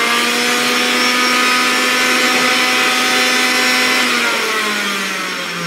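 Electric juicer motor running at a steady high speed, then slowing to a lower, deeper hum about four seconds in.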